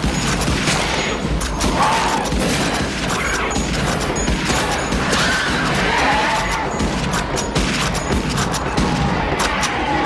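Film battle-scene soundtrack: rapid, continuous gunfire and crashing impacts mixed with music.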